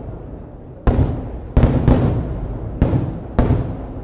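Kerala temple-festival fireworks (vedikettu) going off: five loud bangs at uneven intervals in about three seconds, each followed by a rumbling decay.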